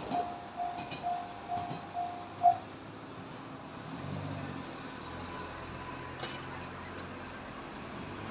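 Japanese level-crossing warning bell ringing its rapid electronic clang about twice a second, then stopping a couple of seconds in, once the train has cleared the crossing. A low steady rumble of road traffic follows.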